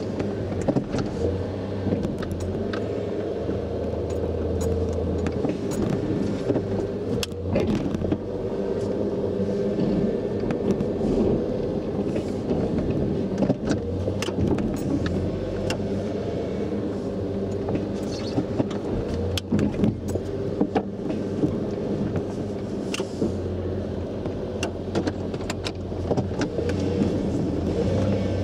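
A 1992 Ford Ranger's 2.9-litre V6 running, heard from inside the cab as the truck drives and pushes snow with its plow. Scattered clicks and rattles run through the steady engine sound.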